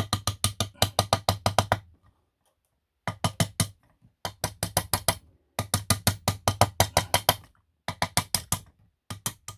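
Rapid light hammer blows, about eight a second, in six short runs with brief pauses. A steel hammer is peening the rim of the ball-bearing seat in a Yamaha Cygnus scooter's aluminium crankcase, raising metal to tighten a loose bearing fit, the traditional method.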